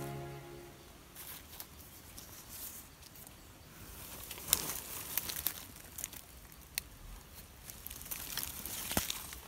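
Dry leaves and twigs rustling and crackling in scattered small clicks, with a sharper snap about halfway through and another near the end. Background music fades out in the first second.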